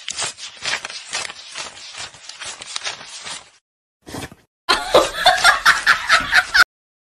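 Laughter in quick short bursts, like snickering, for a few seconds. After a brief pause it comes back louder and cuts off suddenly.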